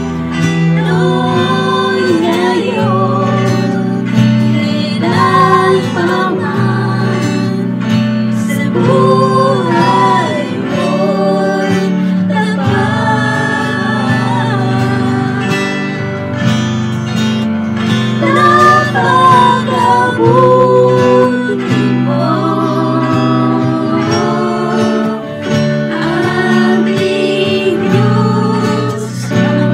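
Worship song sung in Tagalog by a woman leading other singers, over acoustic guitar and keyboard.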